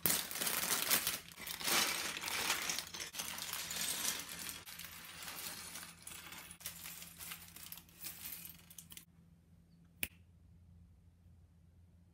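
Clear plastic bags of LEGO bricks crinkling as they are torn open, and small plastic bricks clattering and rattling onto a wooden tabletop, for about nine seconds. A single sharp click about ten seconds in.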